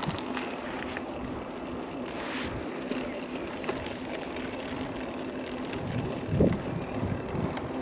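Mountain bike rolling along a road: steady tyre and wind noise on the microphone, with scattered small clicks and a brief low thump about six and a half seconds in.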